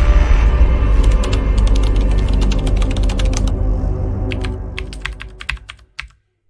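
Intro sound design: a deep musical hit that rings on and slowly fades away, overlaid with rapid keyboard-typing clicks that keep going as it fades, a last few clicks coming just before the end.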